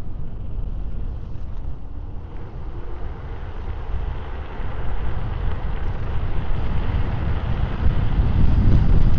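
Wind rushing over a clip-on wireless microphone with road rumble while riding an electric scooter, getting louder about halfway through and again near the end as the speed picks up.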